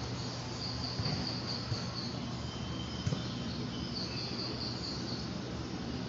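Crickets chirping in short high trills, with pauses between, over a steady low hum; a few faint knocks about one and three seconds in.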